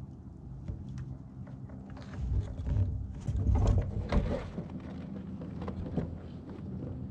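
Fishing kayak with a hooked fish being brought alongside: scattered light clicks of handling and tackle, then a louder stretch of splashing and knocking against the hull about two to four seconds in.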